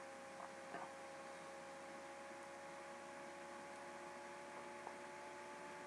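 Faint, steady electrical hum, a few steady tones over light hiss, with nothing else heard.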